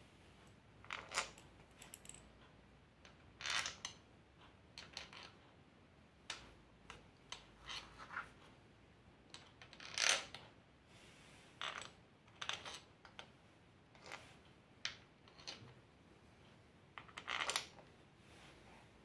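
Metal hand tool clinking and tapping against the aluminium clutch cover and its bolts of a Yamaha YBR 125 engine: scattered light metallic clicks, about a dozen at irregular intervals, some in quick pairs.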